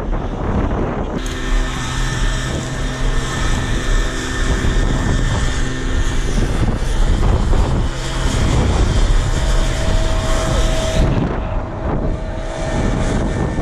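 Wind buffeting the microphone, with a vehicle engine running at a steady pitch from about a second in until near the end.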